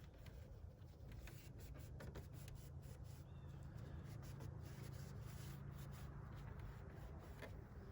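Faint rubbing of a hand scrubbing a plastic composite headlight lens with cleaner to take off the yellowed oxidation, over a low steady hum.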